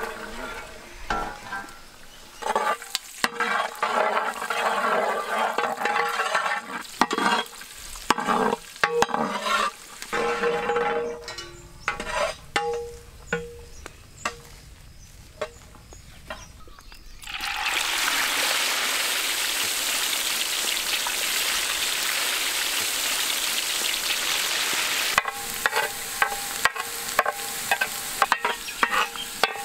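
Clatter and knocks of a metal scoop handling raw garlic cloves in a metal pot, then, a little over halfway through, garlic cloves hit hot vegetable oil in a large wok and a loud, steady sizzle starts at once. Near the end, a ladle stirring the frying garlic adds scrapes and clicks over the sizzle.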